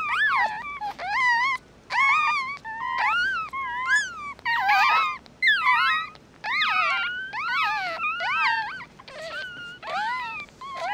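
Several newborn mixed-breed puppies squeaking and whining. The high cries rise and fall, follow one another with short gaps, and often overlap.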